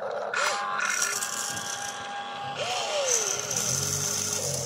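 Small electric motors and gearboxes of a radio-controlled model excavator whining in stop-start spells as it swings round and lowers its boom.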